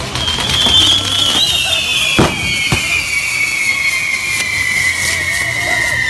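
Fireworks on a torito: a high whistle slowly falling in pitch, over the crackle of spraying sparks, with two sharp bangs a little after two seconds in.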